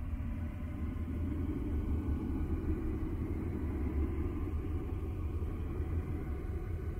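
Space 'sound' presented as that of Uranus's moon Miranda, a sonification of spacecraft data: a steady, deep rumbling drone with a hollow rushing sound above it that comes up about half a second in, and faint steady high tones.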